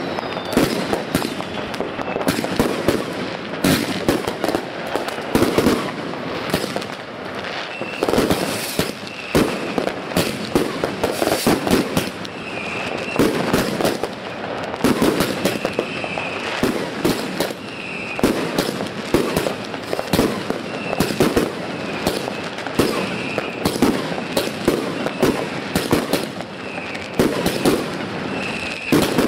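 Consumer firework cakes firing shot after shot as a dense, continuous run of bangs, the shells bursting into stars overhead.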